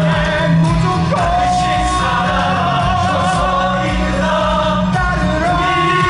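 Loud musical-theatre number: male voices singing over an amplified band backing track, with sustained sung notes and a strong bass line.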